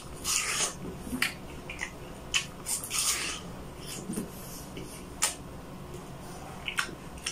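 A person chewing soft, juicy fruit with wet mouth clicks and smacks, in short irregular bursts.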